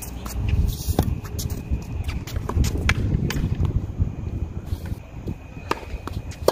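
Tennis players' footsteps and shoe scuffs on an outdoor hard court over a low rumble, with scattered sharp knocks. A sharp racket-on-ball hit comes right at the end.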